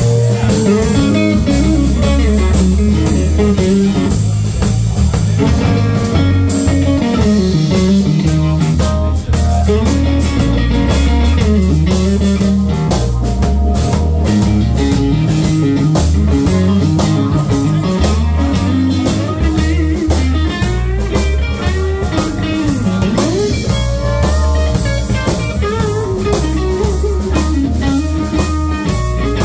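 Live blues-rock band playing an instrumental section: an electric guitar plays a lead line with bent notes over a drum kit and a steady low bass part.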